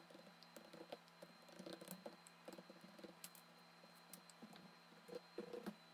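Very faint, scattered light clicks and taps from a silicone pastry brush and a small glass bowl of egg wash being handled while the egg wash is brushed on.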